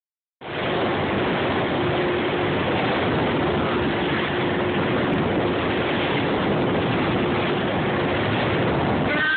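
Motorboat under way at speed: a steady rush of the hull cutting through the waves and spray, with a faint engine hum beneath.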